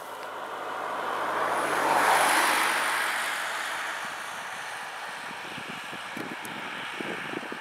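A car passing close by on a country road. Tyre and engine noise swells to its loudest about two seconds in, then fades as it drives away.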